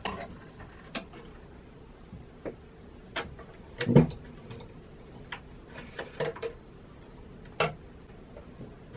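A cat moving about on wooden wall shelves: scattered light knocks and clicks, the loudest about four seconds in.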